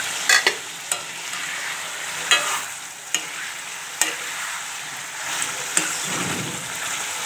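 A metal ladle scraping and clinking against a metal kadai as it stirs a frying curry, with a steady sizzle and several sharp clinks.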